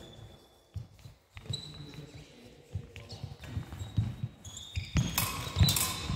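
Fencers' feet thudding and stamping on a wooden gym floor during a rapier-and-dagger bout. Near the end, steel rapier blades clash and ring.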